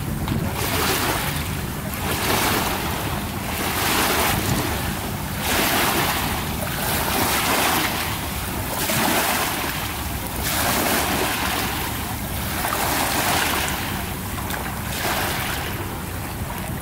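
Small, gentle waves washing in over a shallow rocky shoreline, a swell of hiss every one and a half to two seconds. Wind rumbles on the microphone underneath.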